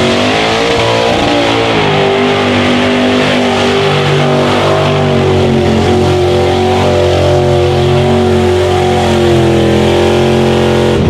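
A mud-bog truck's engine at high revs as it powers through a mud pit. The pitch climbs in the first second, then holds high and fairly steady with small wavers, and drops off right at the end.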